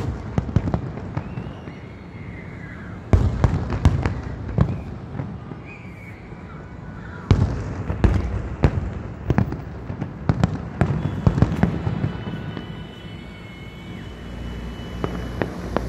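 Aerial fireworks exploding: bangs in quick runs, one beginning about three seconds in and a longer one from about seven seconds, with scattered bangs between.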